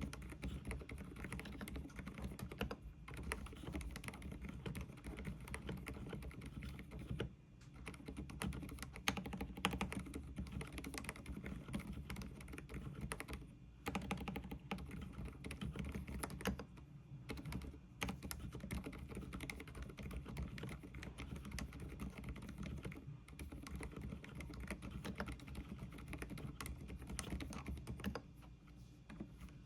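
Continuous typing on an Mstone keyboard with low-noise (silent) Milky 45 g switches: a dense run of soft key clicks, broken by a few brief pauses.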